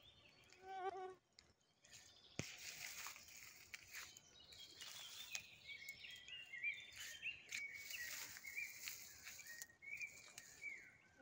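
Faint outdoor ambience with small birds chirping and singing, with many short, high calls through the second half. A short wavering call sounds about a second in, and a single click follows a little after two seconds.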